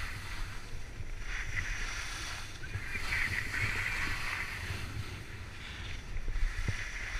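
Skis sliding and carving on packed snow, a hissing scrape that swells and fades several times with the turns, over the low rumble of wind buffeting the action camera's microphone.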